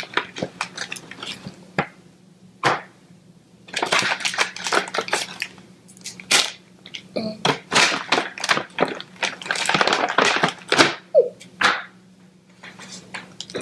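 Crinkling and rustling of a foil blind-bag packet and a paper gift bag as toys are pulled out and handled, coming in bursts of crackling with short pauses.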